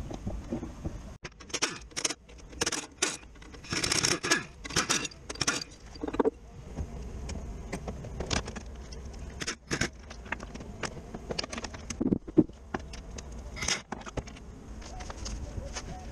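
Irregular metallic clinks, rattles and scrapes of hand tools and bolts being handled while working on the gearbox, with a dull knock about twelve seconds in.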